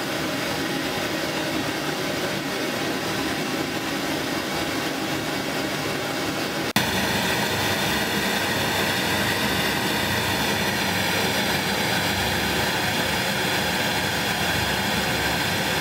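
Pink noise played through studio monitor loudspeakers to calibrate the listening level to 86 dB SPL at the listening position with both speakers on. A steady hiss with a brief click about seven seconds in, after which it goes on a little louder and brighter.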